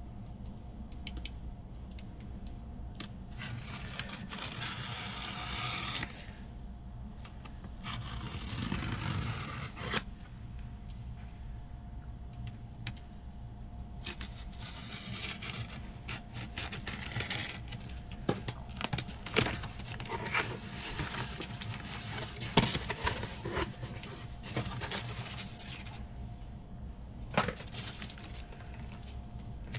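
Cardboard shipping box being opened by hand: several long rips of packing tape or paper, then cardboard and packing material rustling and scraping, with many small clicks and knocks as the contents are handled. A faint steady hum sits underneath.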